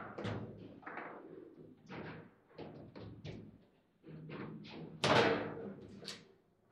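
Foosball table in play: players' figures striking the ball and rods knocking, heard as a run of sharp knocks. The loudest knock comes about five seconds in, as a hard shot that ends in a goal.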